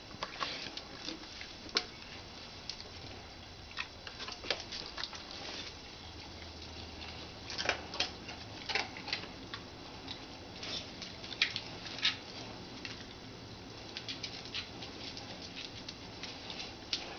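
A basset hound eating, with irregular crunching and clicking.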